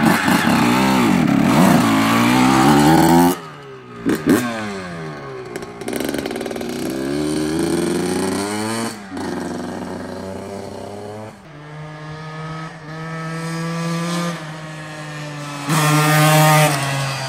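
2001 Honda CR125R two-stroke single-cylinder dirt bike engine revving hard, then pulling away and running up through the revs again and again, pitch rising and falling. It is quieter and steadier in the middle and loud again near the end.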